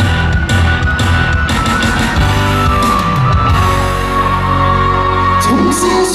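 Loud live band music through a concert sound system, with drums and long held notes; an instrumental passage with no clear singing.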